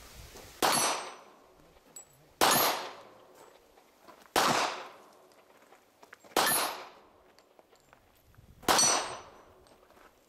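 Five handgun shots fired at an unhurried pace about two seconds apart, each with the ring of a steel target plate being hit and dying away over most of a second.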